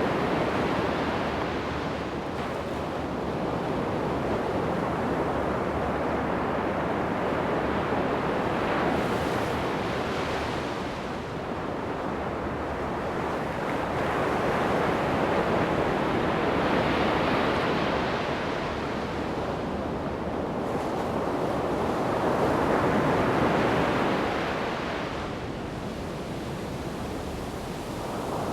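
Ocean surf breaking and washing on a sandy beach, a steady rush of noise that swells and falls back every several seconds.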